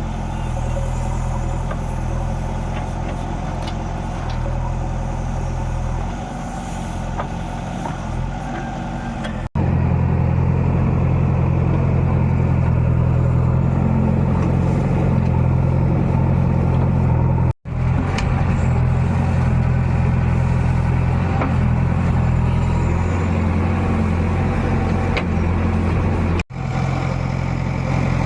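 Heavy diesel engine of a backhoe loader and tractors running steadily at a work site, with a low, even hum. The sound drops out briefly three times where the recording is cut, and runs louder after the first cut.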